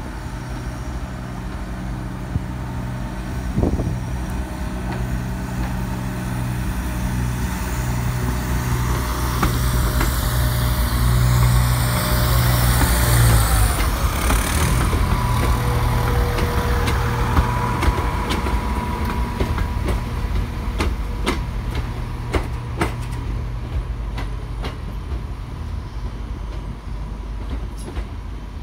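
Class 170 Turbostar diesel multiple unit passing close. Its underfloor diesel engines give a loud, steady hum that grows as the train nears, then drops away sharply about halfway through. After that come the rolling wheels and a run of sharp clicks over the rail joints as the train pulls away.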